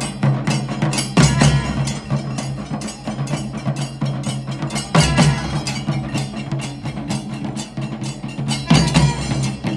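Music with rapid, clicking percussion over a steady low drone, punctuated by a deep booming hit about a second in, another about five seconds in, and another near the end.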